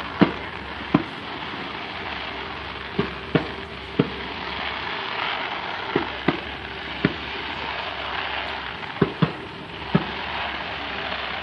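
Aerial fireworks shells bursting: about a dozen sharp bangs at irregular intervals, some in quick pairs, over a steady background hiss.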